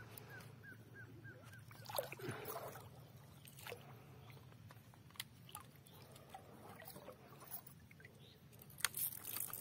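Faint splashes of a hooked silver arowana thrashing in shallow water at the river's edge, a few short sharp splashes spread out with the loudest near the end. A bird gives a quick run of short repeated calls during the first second or so.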